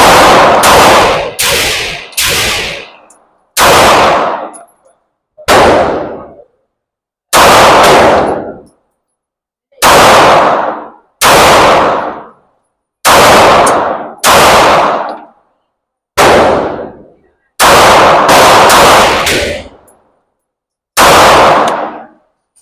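A 9mm Glock 45 pistol firing about seventeen shots at an uneven pace, some in quick pairs or triples, each sharp report followed by a short echo off the walls of an indoor range.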